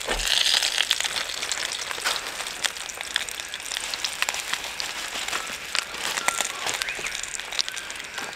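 Silver perch fillets and a whole fish frying in hot oil in a non-stick pan: a steady crackling sizzle with many small pops. It is a little louder just after the start, as a fillet goes into the pan.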